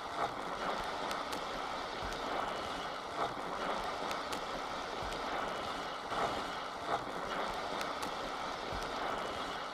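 A steady hiss with faint scattered clicks and crackles.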